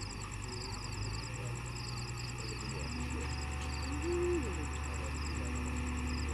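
Low, steady engine drone from heavy machinery, its pitch stepping slightly twice, under insects chirping in fast repeated pulses. A brief higher tone sounds about four seconds in.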